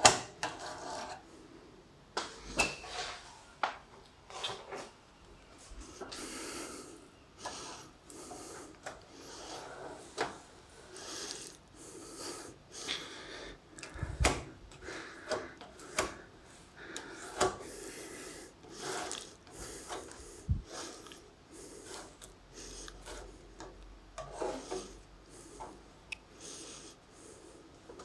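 Metal putty knife scraping filler onto a wooden door post and smoothing it, in many short, irregular strokes with occasional sharp ticks of the blade.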